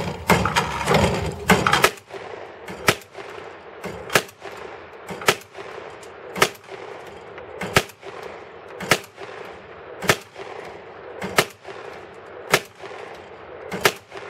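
Mossberg 930 semi-automatic 12-gauge shotgun fired rapidly at hand-thrown clay targets, about a dozen shots in all. A quick cluster of shots comes in the first two seconds, then single shots follow evenly a little over a second apart.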